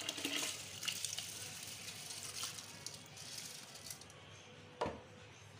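Soaked rice pouring from a steel bowl into a pot of stock, a wet, grainy pour that fades out about four seconds in. A single sharp knock follows near the end.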